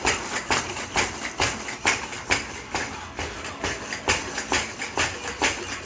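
Repeated banging, about three knocks a second in an uneven rhythm, as a small child bangs on something.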